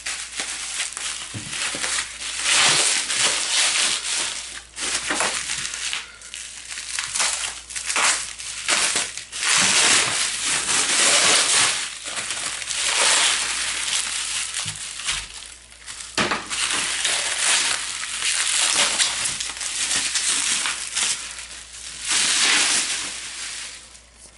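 Plastic bubble wrap being pulled and unwrapped, crinkling and crackling in irregular bursts.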